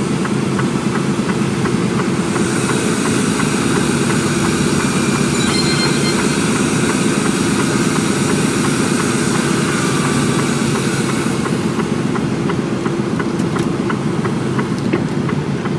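Heavy diesel engine running steadily, a low even drone with a faint hiss above it.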